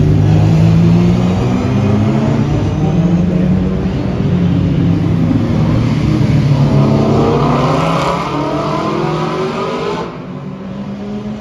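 Historic race and sports car engines running as the cars pass at low speed. About six seconds in, one accelerates and its note rises, and the sound drops off suddenly near the end.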